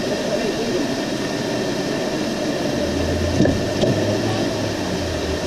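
Steady mechanical hum and hiss, with a deeper low hum that comes in about three seconds in and holds.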